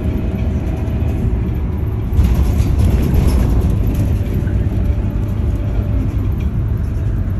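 Scania OmniLink single-deck bus in motion, heard from inside the passenger cabin: a steady low engine and road rumble that grows a little louder about two seconds in.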